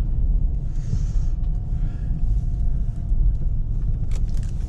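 Car driving on snowy city roads, a steady low rumble of engine and road noise heard from inside the cabin, with a few light clicks near the end.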